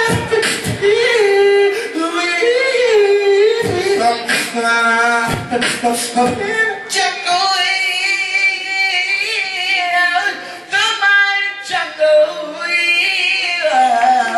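Male R&B singer singing live into a handheld microphone, holding high notes and bending them in long, sliding vocal runs, with a few sharp hits scattered through.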